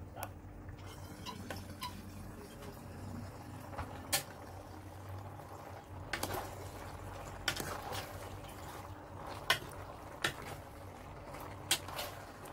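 A metal spoon and bowl clinking against a metal cooking pot as boiled pasta is tipped in and stirred: about seven sharp, irregular clinks over a low steady hum, with soft moist shuffling of the pasta.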